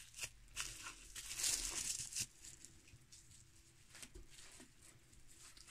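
Clear plastic wrapping crinkling and rustling as it is handled around a paint bottle for about two seconds, then dying down to a few faint scattered rustles.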